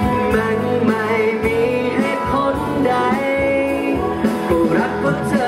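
Male singer singing live into a handheld microphone over instrumental accompaniment.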